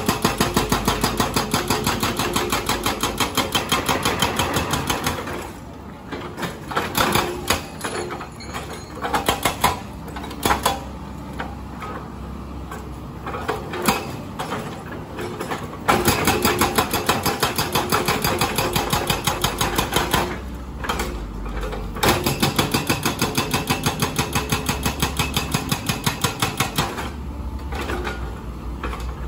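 Hydraulic breaker on a Komatsu PC200 excavator hammering concrete road pavement in rapid, even blows, about five a second. It stops about five seconds in, leaving scattered knocks and clatter, then starts hammering again at about sixteen seconds and stops shortly before the end.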